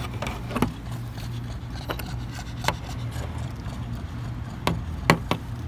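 Scattered light clicks and taps of a clear plastic jar and its lid being handled and set down on concrete, over a low steady rumble.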